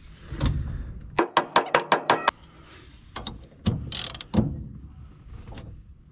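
Ratchet wrench clicking as it is swung back and forth on a fitting: a quick run of about seven clicks just over a second in, then scattered single clicks and a short rattle around the fourth second.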